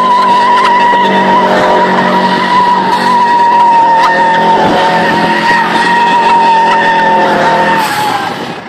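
Subaru engine held at high revs with the tyres squealing in a steady high tone while the car spins donuts. Near the end the sound drops away sharply.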